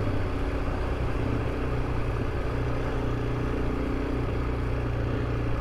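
Honda CRF300 Rally's single-cylinder engine running at a steady cruise while riding, with steady wind and road noise.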